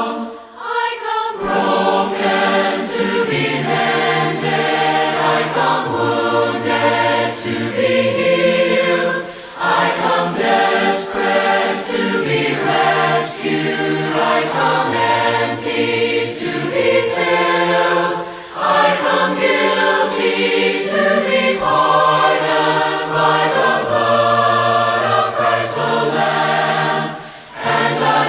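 A cappella choir singing a hymn, several voices sustaining notes in harmony and moving phrase by phrase, with brief breaths between phrases.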